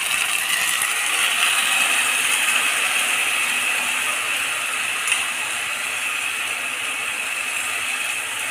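Rice sizzling and crackling in hot ghee in an aluminium pressure cooker, a steady frying hiss as the rice is toasted with fried onions and whole spices for ghee rice.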